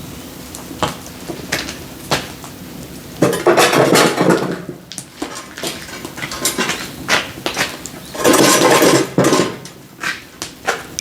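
Split firewood logs clattering and knocking against each other as they are handled, with two longer runs of loud rattling clatter, about three seconds in and again near eight seconds.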